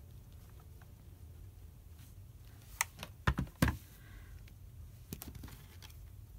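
A few sharp knocks and clicks about three seconds in as a clothes iron is set upright on its heel on a cutting mat, with light fabric handling. A low steady hum runs underneath.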